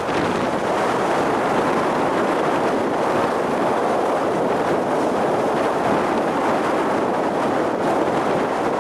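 Wind buffeting the microphone: a loud, steady rushing noise.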